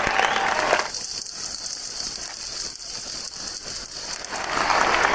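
Large stadium crowd applauding: a dense patter of many hands clapping. The fuller roar of the crowd falls away about a second in and swells back near the end.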